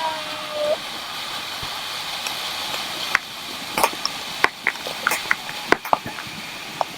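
Water pouring from a waterfall onto the lazy river, a steady rushing hiss, with a scatter of sharp splashes and knocks in the second half.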